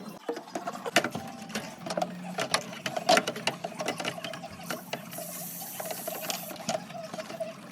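Hand-tool work on a water heater's gas valve: irregular metallic clicks and ratcheting, several a second, over a steady hum.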